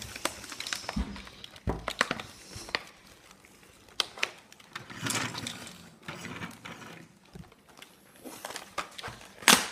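Plastic toy parts and packaging being handled: scattered clicks and taps with short bursts of rustling, and one sharp, louder click near the end.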